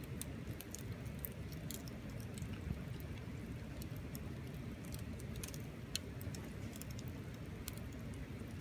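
Wood bonfire crackling, with frequent sharp pops and snaps over a steady low rumble; two snaps stand out louder, about three seconds and six seconds in.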